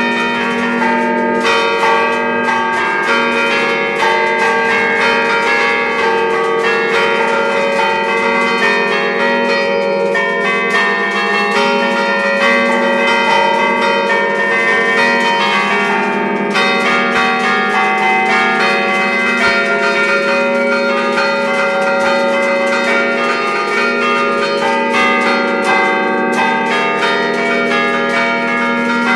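The five bronze church bells cast by Achille Mazzola in 1951, a ring with its tenor on a slightly flat E-flat, ringing together in a continuous, dense peal of overlapping strokes, heard close up from inside the bell chamber.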